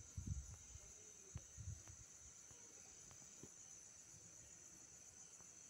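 Near silence: a faint steady high-pitched hiss, with a few soft low thumps in the first two seconds.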